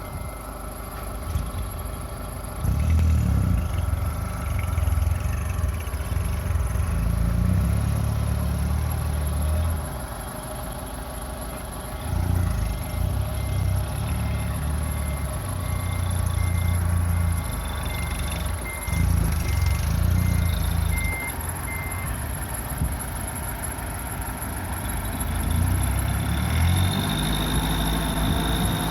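Case 580 Super L backhoe loader's diesel engine working, revving up in surges of several seconds under load as it pushes earth and dropping back between them. A reversing alarm beeps steadily, stopping about three quarters of the way through.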